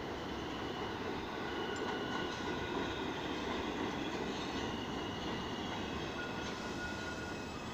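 New York City Subway train arriving on the elevated tracks: a steady rolling noise of steel wheels on rail, with thin, high, sustained wheel squeals above it.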